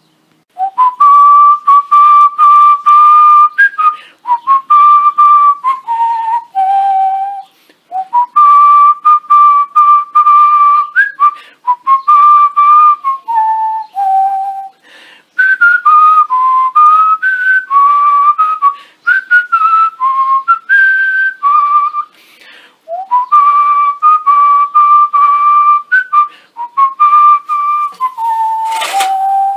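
A person whistling a tune in phrases of held notes, each phrase stepping down to a lower note at its end, with short breaks between phrases. A brief noisy burst comes just before the end.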